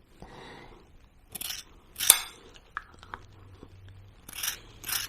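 Scissors snipping dog hair: a few short, scattered snips and clicks, the sharpest about two seconds in.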